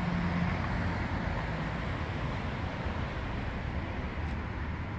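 Ferrari 488 Pista's twin-turbo V8 idling steadily: a low, even rumble with street noise around it.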